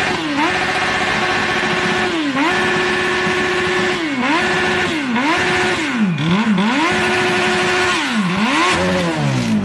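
Motorcycle engine revved flat out while standing, held again and again at the same top revs as if on the rev limiter, with brief dips in between. The revs fall away steeply near the end. It is an engine being deliberately over-revved to destruction.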